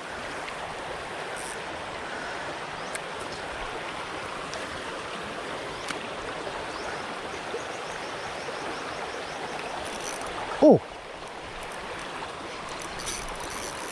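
Steady rush of water from a flowing stream and cascade.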